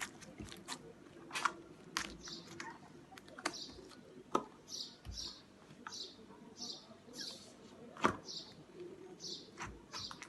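Scattered light clicks and taps of plastic slime tubs being handled. In the second half comes a run of short, high chirp-like sounds, a bit more than one a second.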